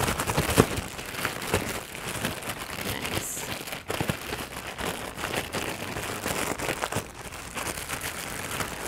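A plastic zip-top bag crinkling continuously as the raw chicken breasts inside are shaken and squeezed to coat them in a dry spice mix.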